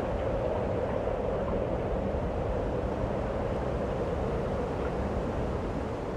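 A steady rumbling drone of noise, even throughout and easing off slightly near the end, with no speech or music.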